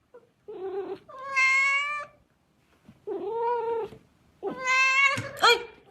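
A cat meowing four times in drawn-out calls, each up to about a second long, with short gaps between.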